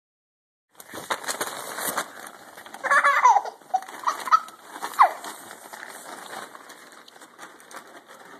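Nylon play-tent fabric rustling and crackling as a toddler and a dog shift about inside it. Over it come short high squeals with falling pitch, about three seconds in and again near five seconds, with smaller ones in between.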